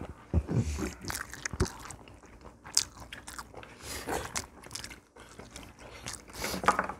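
People eating at a table: soft chewing and crunching with scattered light clicks of spoons and chopsticks against bowls.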